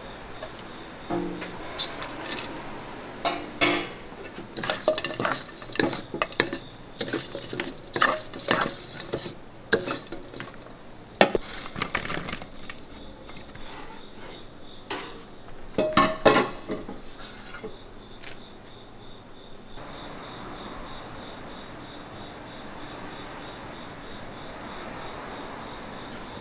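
A wooden spatula scraping and knocking against a steel wok as fried snails are tossed in a sticky sauce: a long run of irregular scrapes and clacks. After about 17 seconds the clatter stops and only a steady hiss with a faint high whine remains.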